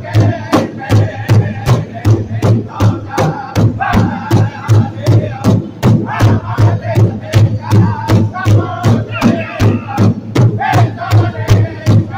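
Powwow drum group: several men striking one large shared drum in unison at a steady, fast beat of nearly three strokes a second, while singing loudly together.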